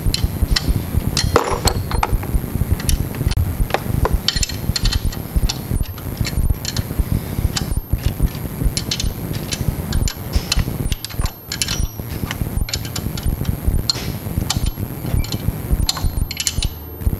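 Ratcheting wrench clicking in quick, irregular strokes as it backs a double-nutted intake manifold stud out, metal ticking on metal throughout.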